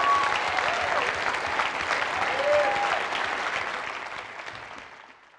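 Audience applauding, with a couple of whoops from the crowd. The applause fades out near the end.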